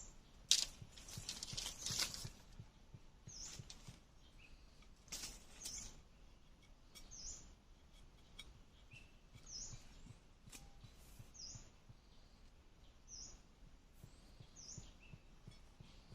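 A small bird chirping again and again, a short high falling note about every one and a half to two seconds. Bursts of scraping or rustling noise come in the first two seconds and again about five seconds in.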